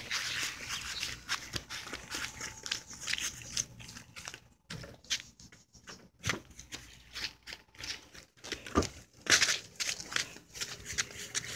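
Rustling and scraping noise from a handheld phone's microphone as it is moved about, with scattered knocks and thumps, the loudest about nine seconds in.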